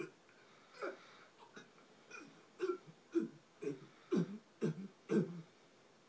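A cartoon dog retching: about a dozen short, dry heaves, each falling in pitch, coming closer together and growing louder partway through. It plays through a TV speaker.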